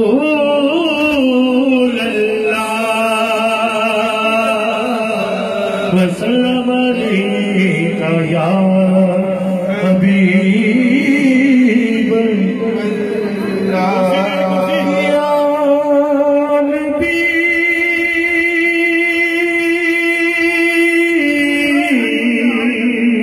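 A man singing a naat, a devotional Urdu poem in praise of the Prophet Muhammad, unaccompanied, in long held and wavering notes.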